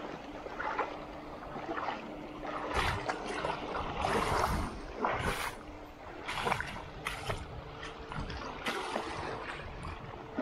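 Shallow seawater washing and sloshing over a flat rock shelf at the water's edge, in irregular surges and splashes.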